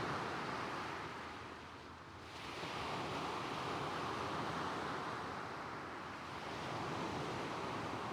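Gentle waves washing up a stone beach and drawing back over the pebbles. The wash swells and eases about every four seconds.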